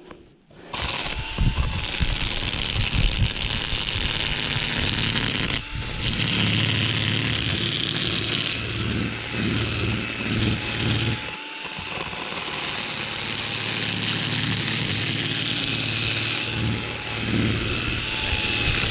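Cordless drill with a fish-scaler head running against a zander's side, scraping off the scales. The motor runs steadily, easing off briefly twice.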